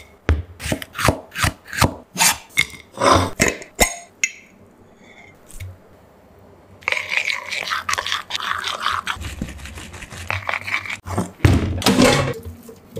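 Kitchen food-preparation sounds: a run of sharp taps for the first few seconds, a quieter spell, then several seconds of scraping and rubbing, with a few knocks near the end.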